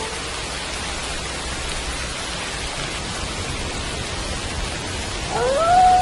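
Steady rain falling, with the tail of a wolf howl dying away at the start. About five seconds in a new wolf howl begins, rising in pitch and then holding one long note.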